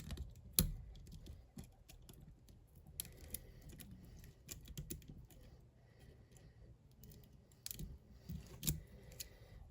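Faint metal clicks and light scraping of a diamond pick and tension tool working the side pins of a hardened steel Bell bike lock, with a few sharp ticks as pins set, the loudest about half a second in and more near the end.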